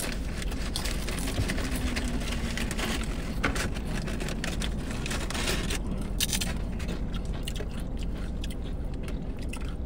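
Close-up crunching and chewing of tortilla chips, with scattered short crackles, over a low steady hum.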